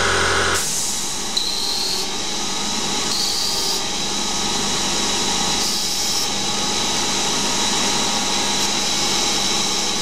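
Small benchtop CNC lathe turning a Delrin part on a profile cut at 0.15 mm per rev: the spindle and drive run with a steady high whine while the tool cuts, and the cutting hiss swells a few times. A lower hum drops away about half a second in.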